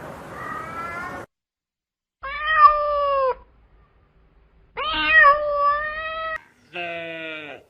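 Cat meows: four separate drawn-out calls with abrupt starts and ends and silent gaps between them. The last call is lower and falls in pitch.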